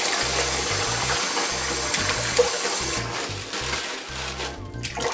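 Kitchen tap running into a steel bowl of water as chicken is rinsed in it, the flow shutting off about three seconds in. Background music with a low bass line plays underneath.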